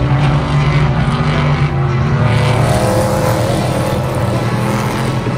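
A group of race cars passing on the circuit, their engines running loud and steady, with one engine note rising and then falling around the middle.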